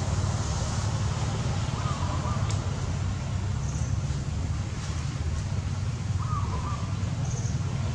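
Steady low rumble of outdoor background noise, with two short animal calls about two seconds and six seconds in.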